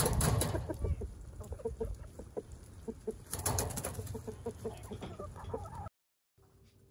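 A flock of chickens clucking softly while feeding: many short, quick clucks, mixed with two louder bursts of rustling noise. The sound cuts off abruptly near the end.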